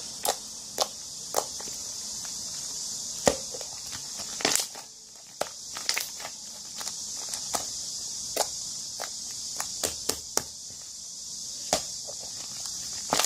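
Slime being squished and poked by hand, giving irregular sharp clicks and small pops over a steady high hiss.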